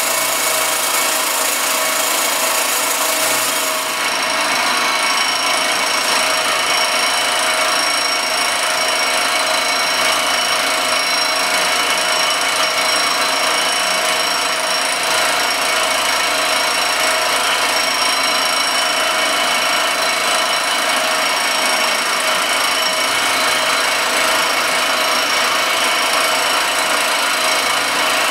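Circa-1948 Gorton 8-1/2D vertical milling machine cutting an aluminum casting under table feed: a steady cutting hiss with several steady high whining tones, unbroken throughout.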